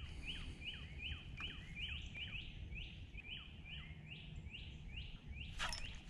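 A songbird singing a long, even run of short slurred notes, about three a second, over faint outdoor background noise.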